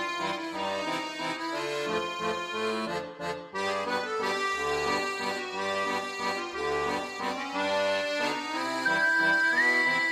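Background music: an instrumental tune of held, sustained notes over a moving bass line.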